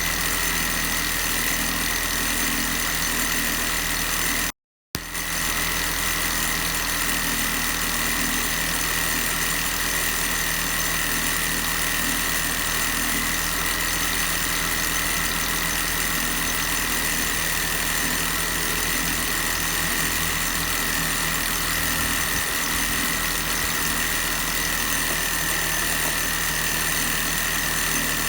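MINI Cooper S (R53) supercharged four-cylinder engine idling steadily, with a constant high-pitched whine over the running sound. This is the abnormal noise being checked with a stethoscope before repair. The sound cuts out completely for a split second about four and a half seconds in.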